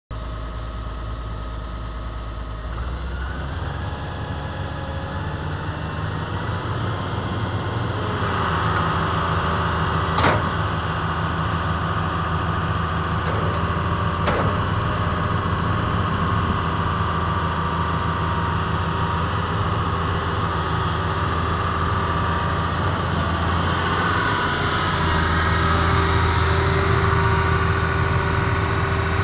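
2003 John Deere 200C LC excavator's diesel engine running steadily, its speed picking up a few seconds in, while the boom, arm and bucket are worked, with a steady hydraulic whine that grows stronger about eight seconds in and again near the end. Two sharp knocks come about ten and fourteen seconds in.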